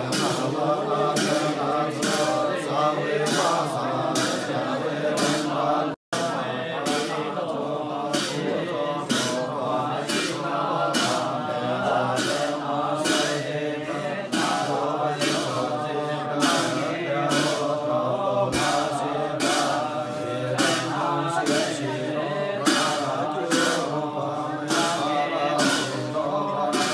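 Male voices chanting a Gurung funeral liturgy over a steady beat of percussion strikes, about three every two seconds. The sound cuts out for an instant about six seconds in.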